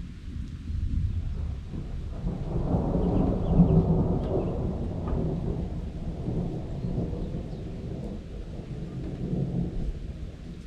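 Rolling thunder: a deep rumble that swells a few seconds in and then slowly dies away, with faint rain underneath.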